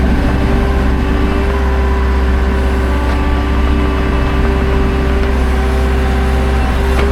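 Skid steer engine running steadily, with a constant whine held over the low engine hum.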